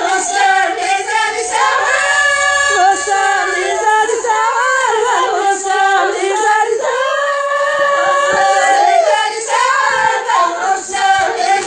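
A song: a high voice singing a melody, gliding between notes and holding some of them long.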